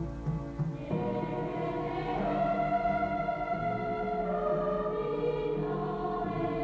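Orchestral film-score music with a choir, played back from reel-to-reel tape; about a second in, fuller voices come in holding long notes over the lower accompaniment.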